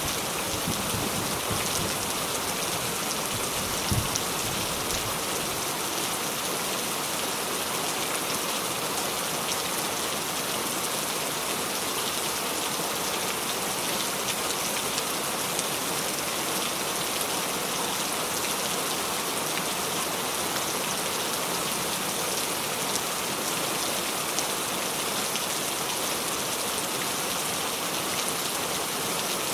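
Steady rain falling, an even hiss of drops on surfaces, with one brief low thump about four seconds in.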